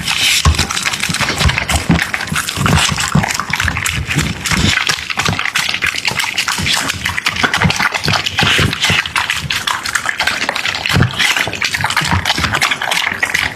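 A dog eating from its bowl: fast, wet chewing and lapping, a dense run of small smacks and clicks.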